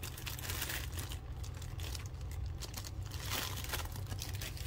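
Clear plastic bags crinkling as they are handled: a run of irregular crackles.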